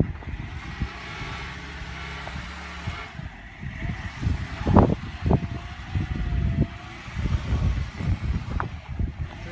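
A motor vehicle's engine running low and steady, with a series of irregular knocks and thumps; the loudest thump comes about five seconds in.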